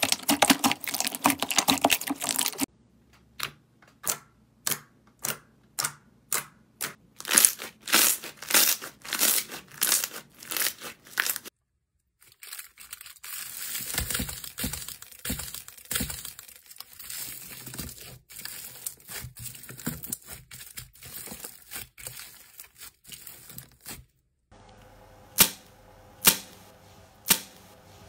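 Hands squishing a large mass of glossy slime, then a string of sharp separate crackles coming faster and faster. A ball of aluminium foil follows, crinkled and squeezed in the hands for about twelve seconds, and near the end come three loud sharp cracks.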